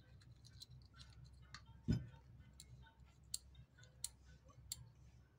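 Faint, scattered small clicks and ticks of pliers working the metal thread take-up spring and discs of a sewing machine's tension assembly, with one dull knock about two seconds in.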